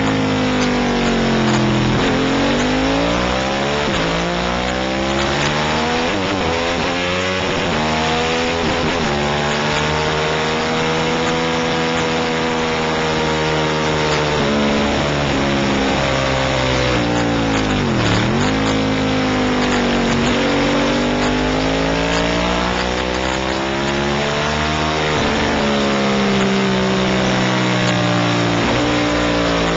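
Racing motorcycle engine at race pace, heard from an onboard camera, revving up through the gears and falling away again and again as the bike brakes and accelerates through corners, with a deep drop in pitch about eighteen seconds in. Wind rush from the bike's speed runs underneath.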